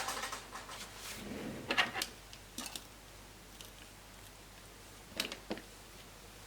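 Plastic laptop casing parts being handled on a bench: a sharp click at the start, a cluster of knocks and rattles about a second and a half in, and two lighter knocks near the end.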